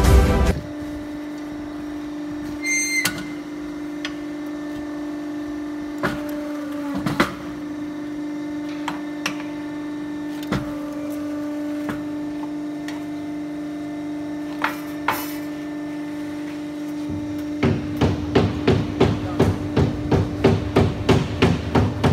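Interlocking brick press with its motor humming steadily, broken by scattered clanks of metal parts as a pair of bricks is pressed and taken out. Near the end a fast, even knocking sets in, about three or four knocks a second.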